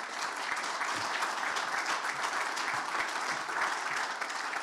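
A seated audience applauding, many hands clapping in a steady, dense patter.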